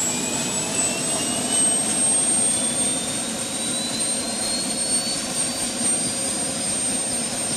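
Turbine helicopter in flight: a steady rush of engine and rotor noise, with a high turbine whine that climbs slowly in pitch and a steady high whistle above it.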